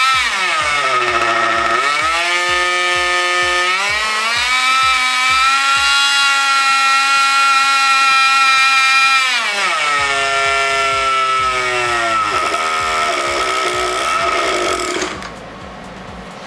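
O.S. .91 two-stroke nitro glow engine driving a Byro Jet ducted fan, running at a high-pitched whine. Its pitch drops and rises again early on, holds high for several seconds, then falls lower about ten seconds in. It cuts off suddenly about fifteen seconds in. It is running untuned: the owner says the tuned-pipe length and the high- and low-speed needle valves still need adjusting.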